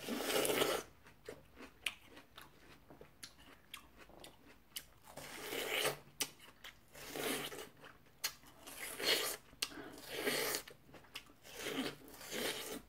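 Crunchy bites and chewing of watermelon eaten close to the rind, in about six crunching spells with small wet mouth clicks between them.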